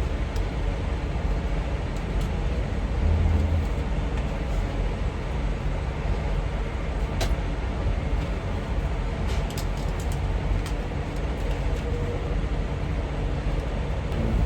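A steady low engine rumble, like a diesel engine idling, with a few faint clicks.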